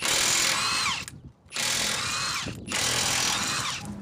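Cordless impact wrench taking the lug nuts off a car's front wheel, in three runs of about a second each. At the end of each run the motor's whine falls away as it stops.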